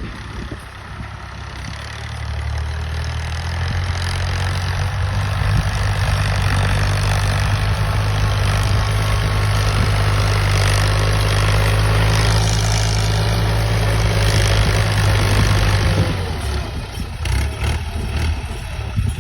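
Al-Ghazi tractor's diesel engine running steadily as it ploughs. It builds over the first few seconds, holds loud, then eases off a few seconds before the end.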